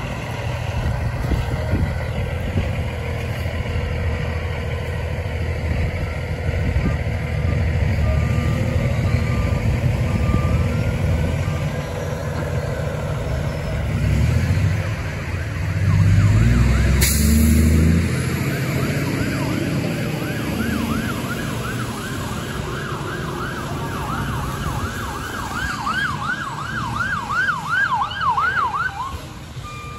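Siren of an approaching fire engine, faint at first, then yelping rapidly and growing louder over the second half before cutting off shortly before the end. Under it runs a low, steady rumble that swells briefly about halfway through.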